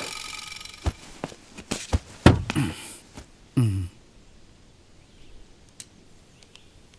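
Film background score and sound effects. A held musical chord fades out over the first second, then come a scatter of short sharp hits and a falling pitch glide a little over three seconds in, and after that only faint sound.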